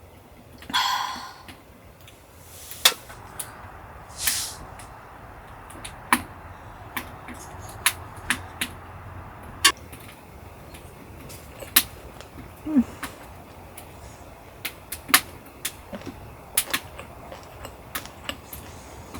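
Scattered sharp clicks and taps of utensils against dishes during a meal, irregular and a few each second at most. There is a short vocal sound about a second in.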